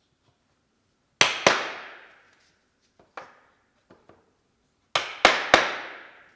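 Hammer blows in short groups: two hard blows, a single blow followed by two light taps, then three hard blows, each ringing out briefly.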